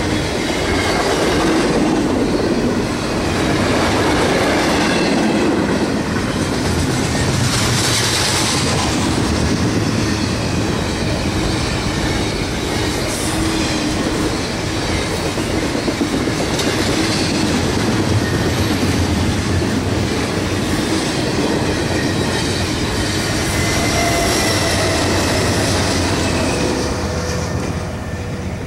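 Double-stack container freight train rolling past: a steady rumble and clickety-clack of the cars' wheels on the rails. The sound falls away sharply near the end as the last car goes by.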